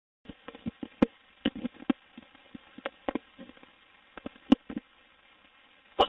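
Irregular short clicks and knocks, about fifteen in six seconds and varying in strength, heard over a narrow-band voice-call line, after a brief moment of dead silence at the start.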